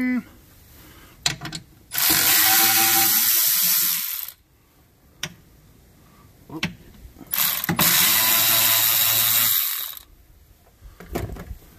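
Cordless electric ratchet running in two bursts of about two seconds each, roughly five seconds apart, spinning out two 8 mm bolts, with a few short clicks in between.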